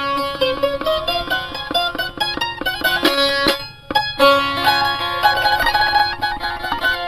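A plucked string instrument playing a melody of many quick, short notes. It breaks off for a moment about halfway through, then picks up again.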